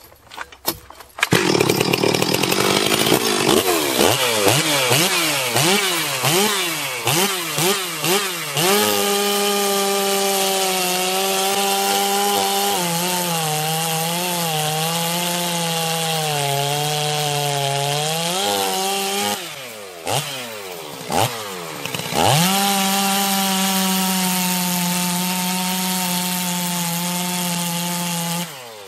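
Ported 70cc two-stroke chainsaw, revved with quick throttle blips, then held at full throttle cutting firewood rounds, its pitch sagging and wavering under load. About two-thirds through it drops off briefly, then revs back up and runs steady in a second cut before stopping near the end.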